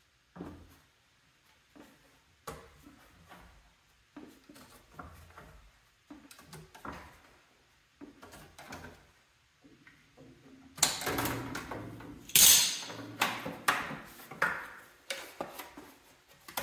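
Hand snips cutting a notch out of a plastic fender piece: irregular clicks and crunches, sparse at first, then louder and quicker from about eleven seconds in, with a sharp crackle near twelve seconds.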